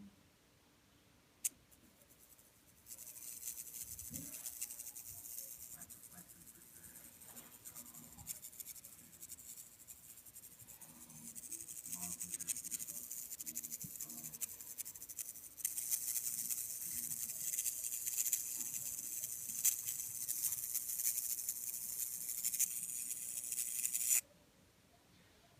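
Samsung UN46F5500 LED TV giving off a high-pitched crackling sizzle, a fast run of fine ticks. It starts about three seconds in, gets louder about midway and cuts off suddenly near the end. The owner cannot tell whether it comes from the transformer.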